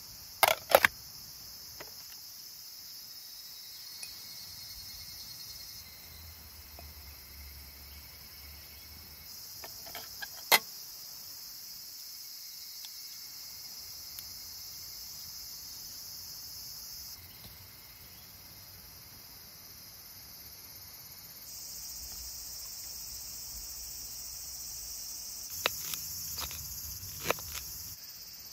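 Steady high-pitched chorus of insects chirring outdoors, broken by a few sharp clicks, the loudest cluster about half a second in and more near the end.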